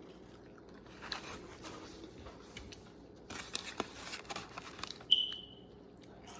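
Soft rustling and crunching noises from eating, then a single short high electronic beep a little after five seconds in that fades out quickly, like a smoke-detector chirp.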